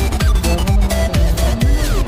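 Electronic dance music with a steady beat and bass notes that slide downward in pitch.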